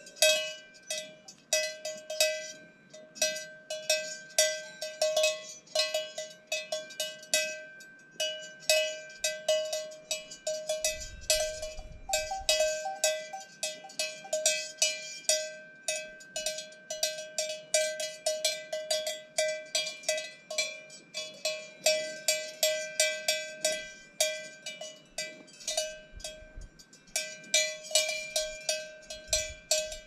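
Cowbells on cows clanking irregularly, several overlapping strikes a second, each ringing briefly. A short low rumble comes through about eleven seconds in.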